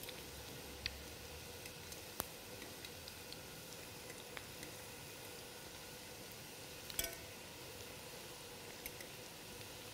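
Chicken kefta balls frying faintly in a pan, with a few light clicks of a utensil against the pan; the loudest click comes about seven seconds in.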